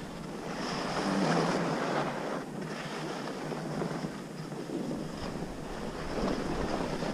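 Skis sliding and scraping over snow, mixed with wind buffeting the microphone; the rushing swells about a second in and again near the end.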